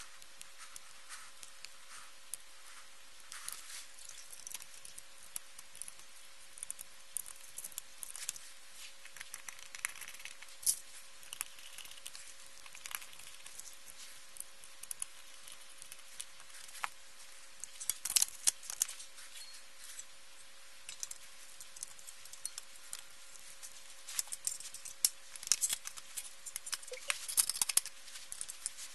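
Scattered small clicks, taps and rustles of an LCD monitor's circuit boards and perforated sheet-metal shield being handled and set back onto the panel during reassembly, with bunches of louder metallic clicks a little past halfway and near the end.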